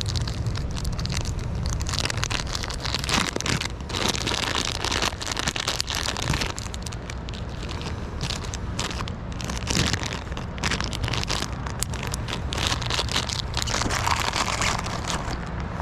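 Crinkling and rustling of plastic soft-bait packaging handled close to the microphone as a hellgrammite soft plastic is swapped for a darker one, with many small crackles over a steady low rumble.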